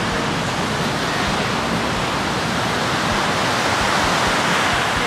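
Ocean surf breaking on a sandy beach: a steady rush of waves that swells to its loudest about four seconds in.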